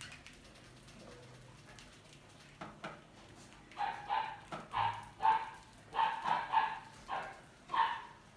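A run of short, sharp animal calls, about two a second, starting about four seconds in, after a few faint knocks.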